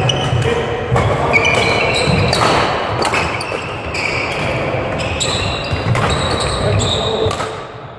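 Badminton play on a sports-hall court: shoes squeaking and feet thudding on the floor, with sharp shuttlecock hits and background voices from the hall.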